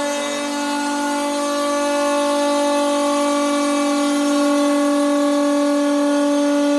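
CNC router spindle running at a steady high speed with a constant pitched whine while milling quartz stone.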